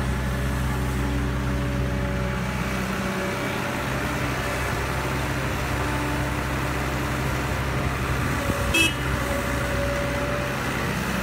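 Caterpillar E120B hydraulic excavator's diesel engine running steadily under load while digging and loading dirt. A brief high-pitched sound rises out of it once, about nine seconds in.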